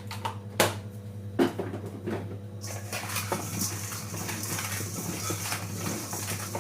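Kitchen dishes and utensils knocking and clinking, with two sharp knocks in the first second and a half, then a steady scratchy rustling of food being handled in a dish.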